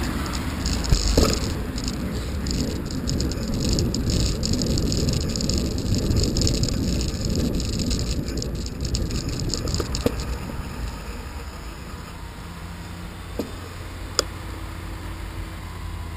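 Onboard sound of a bicycle ride on wet tarmac: a steady rush of wind and tyre noise, with the bike or its camera mount rattling rapidly over the road surface. After about ten seconds it grows quieter as the bike slows, and a few single sharp clicks come through.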